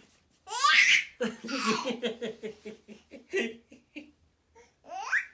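Baby shrieking with delight in a rising squeal, then laughing in a quick run of about five laughs a second that fades out, and another rising squeal near the end.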